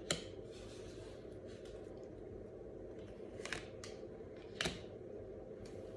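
Tarot cards being handled and laid down on a table: a few short card taps and flicks, one at the start and three more a little past the middle, over a steady low room hum.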